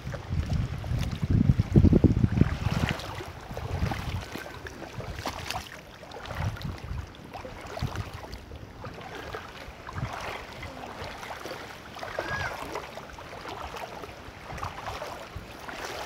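Wind buffeting the microphone in irregular low gusts, strongest in the first few seconds, with small splashes and sloshing of shallow seawater as someone wades through it.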